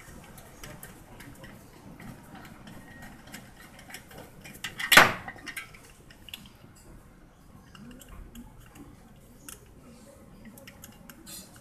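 Small metal clicks and clinks from tools and parts being handled while a car radiator fan motor is fitted into its shroud, with one louder metallic clank about five seconds in.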